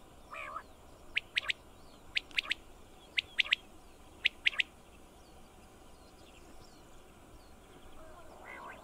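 Common quail singing its "wet-my-lips" song: four quick phrases of three sharp, high notes, about one phrase a second. Soft, lower notes come just before the first phrase and again near the end.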